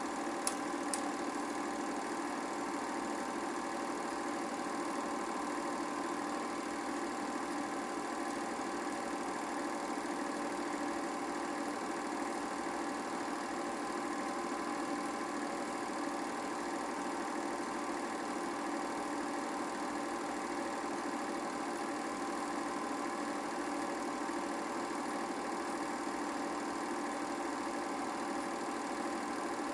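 An 8mm film projector running with a steady mechanical whir and hum, with two short clicks within the first second.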